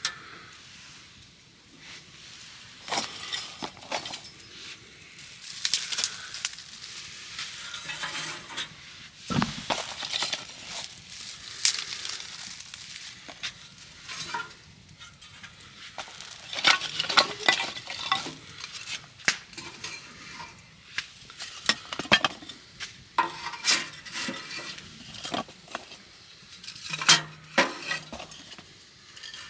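Cooking utensils clinking, scraping and knocking against pots and pans in irregular strokes, with some stirring.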